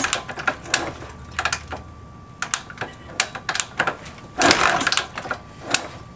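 Kick-starting a Honda XR500 single-cylinder four-stroke engine that does not fire: a hard kick right at the start and another about four and a half seconds in, each a rush of the engine turning over, with sharp clacks of the kick lever and starter ratchet in between. The engine does not catch, so the suspected ignition fault is still not cured by the replacement ignition parts.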